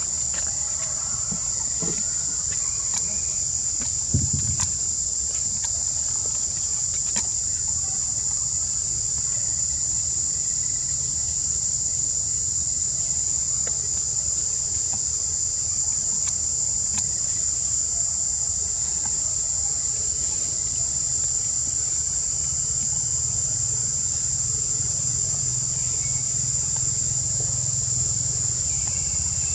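Insects droning continuously at one high, unchanging pitch, over a low steady rumble, with a single low thump about four seconds in.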